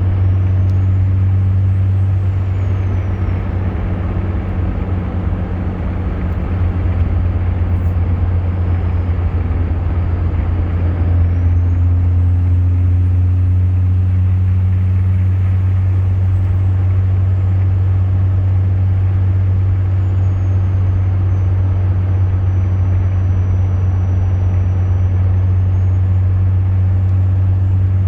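Cummins diesel engine running with a steady low drone, its turbocharger whistling high above it. The whistle glides up and back down about two seconds in, climbs higher around twelve seconds in and holds, then sinks lower and rises again near the end.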